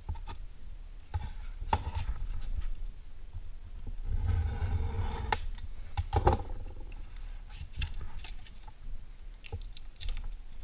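Hands tearing and prying apart an oversized cardboard trading card to free a smaller card inside. The card layers scrape and peel with scattered light clicks, a longer rustling tear about four seconds in, and a sharper knock a couple of seconds later.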